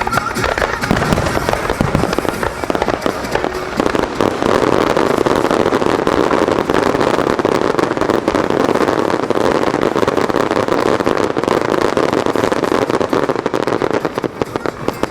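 Aerial fireworks bursting: a few deep booms in the first two seconds, then a dense, continuous crackling of many stars for the rest of the time.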